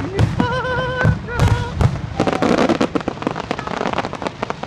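Fireworks finale: a dense run of bangs and crackling, thinning out near the end. Twice in the first two seconds a wavering, whistle-like pitched tone rises above it.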